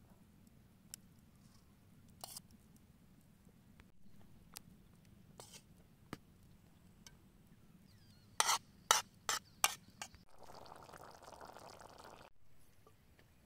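A metal spoon clinking and tapping against an aluminium serving tray as saffron rice is spooned onto it: scattered light clicks, then four sharp taps about eight seconds in. Near the end, about two seconds of a pot of stew bubbling.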